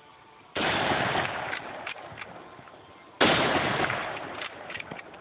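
Two shots from a Mosin-Nagant bolt-action rifle, about two and a half seconds apart, fired in rapid succession. Each shot has a long echoing tail, and small clicks between them are the bolt being worked.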